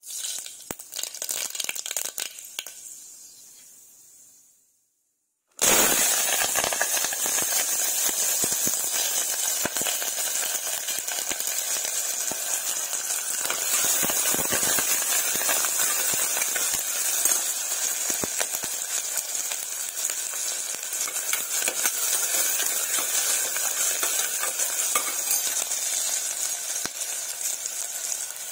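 Chopped onion, green chillies, garlic and curry leaves sizzling in hot oil in a stainless steel pressure cooker, with a steel spoon stirring and scraping against the pan. A few clinks and a short gap come first, then the steady sizzling starts suddenly about five seconds in.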